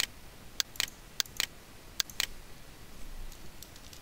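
Sharp clicks of a computer mouse and keyboard, several coming in quick pairs, then fainter ticks near the end.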